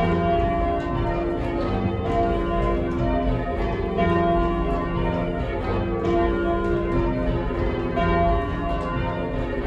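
Church bells being change-rung by hand from the ringing chamber below them, struck one after another in a steady round with overlapping ringing tones.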